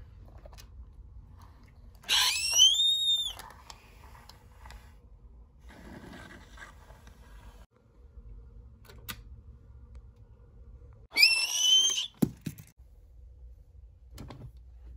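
A shrill, whistle-like squeal comes twice, about two seconds in and again near eleven seconds, each rising in pitch for about a second before levelling off and stopping. Between them are faint taps and handling noise.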